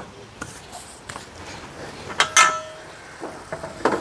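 Kitchen utensils knocking and clinking against a frying pan, a handful of separate sharp strikes, with one louder metallic clink that rings briefly about two seconds in.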